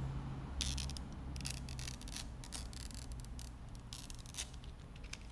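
Irregular crackling and rubbing of a vinyl sticker's clear plastic transfer film as it is pressed onto a car's rear panel and peeled back by hand, over a low steady hum.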